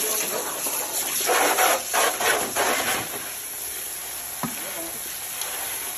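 Water from a garden hose spraying onto wet concrete with a steady hiss, with louder splashing and rubbing between about one and three seconds in as hands stir small fish in a plastic basin. A single sharp click about four and a half seconds in.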